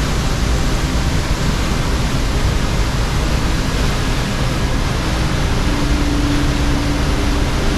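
The North Fork Sauk River Falls running: a steady, loud rush of falling water.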